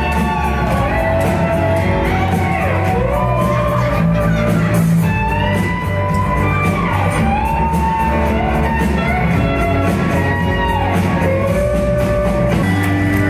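Rock band playing live: a singer over electric guitars and a full band, with shouts from the crowd.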